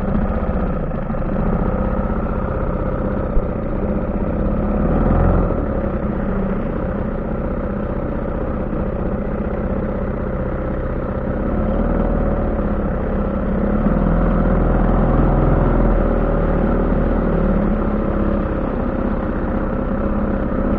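HDX-3.6 small outboard motor running steadily, pushing a rowing boat along, with a slight rise in level for a few seconds after about twelve seconds.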